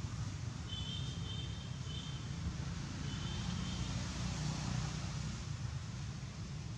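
Steady low outdoor rumble under a constant hiss, with a faint, high, thin tone sounding twice in the first half.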